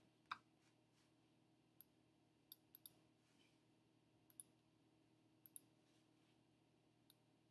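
Computer mouse clicking: about ten short, sharp clicks, some in quick pairs, over near-silent room tone.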